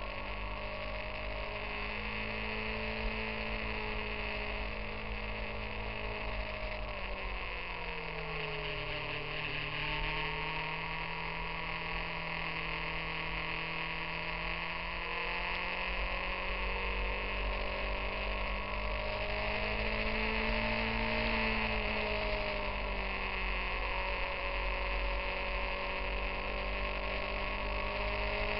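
Motorcycle engine heard from onboard, running at steady cruising revs over a constant rush of wind and road noise. The engine note drops about eight seconds in and climbs back up around twenty seconds in.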